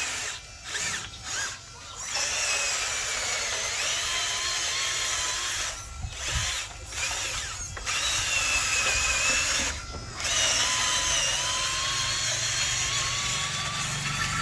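Small electric motors and gearboxes of a radio-controlled toy construction vehicle whining, the high pitch wavering up and down as it drives, cutting out briefly several times and starting again.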